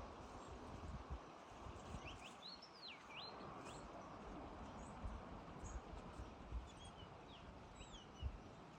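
A small bird singing outdoors: two short runs of quick, high whistled notes that rise and fall, one a couple of seconds in and one near the end, over faint steady background noise with a few soft low bumps.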